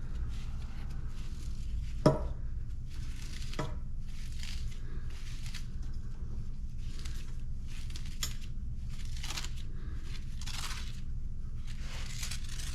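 Scrap wire being pulled and worked free by hand: a sharp snap about two seconds in and a smaller one shortly after, then repeated scraping, rasping strokes about once a second. A steady low hum runs underneath.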